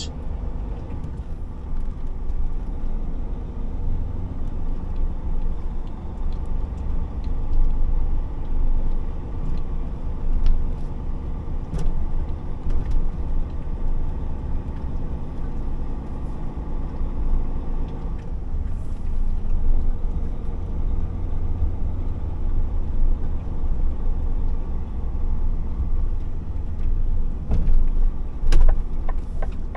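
Truck's diesel engine running under way, a deep steady rumble with an even engine hum above it. A single click comes about 12 s in and a few sharp clicks near the end.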